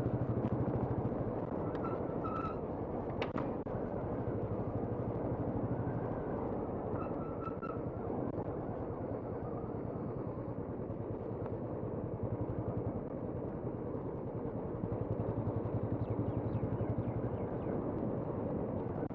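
Two-wheeler engine running steadily while riding, with wind and road noise. A few brief high-pitched tones are heard about two seconds in and again around seven seconds in.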